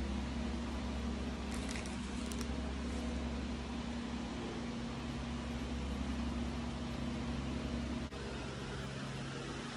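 Steady low electrical hum over a constant hiss, from a running appliance or fan in the room; the sound dips briefly about eight seconds in.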